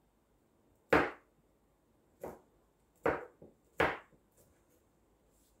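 Kitchen knife roughly chopping garlic cloves on a wooden cutting board: about four sharp knocks of the blade striking the board, unevenly spaced.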